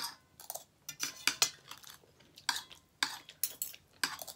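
Metal spoon and fork scraping and clinking against a dinner plate as food is cut and scooped, in a quick irregular string of strokes.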